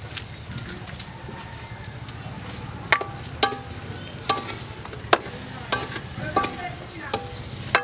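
A spatula knocking and scraping against a wok while eel pieces are stir-fried. There are about eight sharp knocks from about three seconds in, each ringing briefly, over a steady sizzle of frying.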